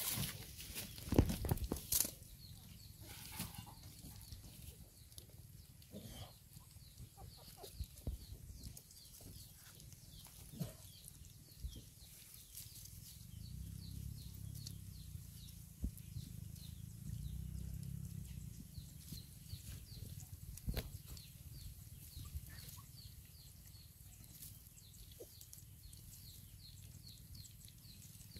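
Litter of young puppies eating from a shared bowl: scattered small clicks of chewing and lapping, with a fast run of light ticking in the second half.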